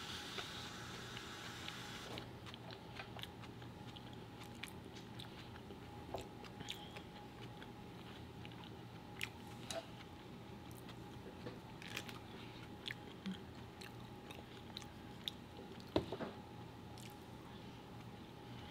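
Close-up eating sounds of sushi being chewed: scattered soft wet clicks and smacks, with a sharper click near the end, over a faint steady hum.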